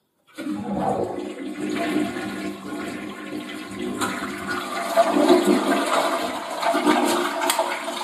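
Toilet flushing: a rush of water that starts just after the beginning, runs for about seven seconds and tails off near the end.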